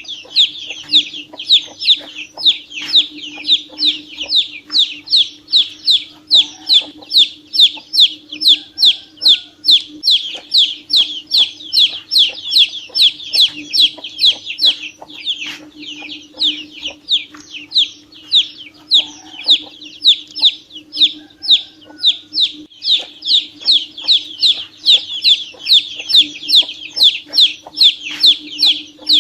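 Domestic chicken chick peeping: short, high calls, each falling in pitch, repeated without a break at about two to three a second, over a steady low hum.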